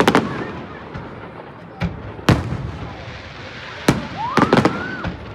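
Fireworks going off: a string of sharp bangs, some in quick pairs, each trailing a brief echo. About four seconds in, a rising whistle sounds among the bangs.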